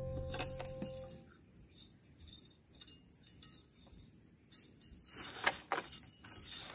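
A lingering music note dies away, then faint scrapes and light clicks of a plastic hand trowel stirring crumbly compost in a plastic tub, a cluster of them about five seconds in.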